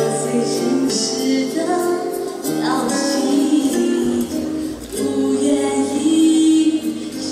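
A woman singing a pop ballad into a handheld microphone over instrumental accompaniment, holding long notes that slide in pitch.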